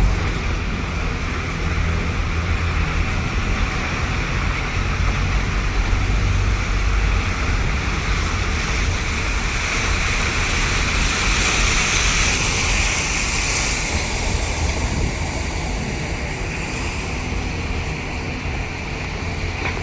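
Waterfall's rushing water: a loud, steady roar of falling water, with low wind buffeting on the microphone. The hiss grows brighter around the middle, then eases a little.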